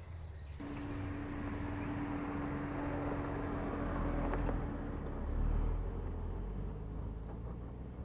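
Dacia Duster 4x4 driving off-road, engine running under a low rumble. A steady hum stops about five seconds in, and a louder low rumble follows shortly after.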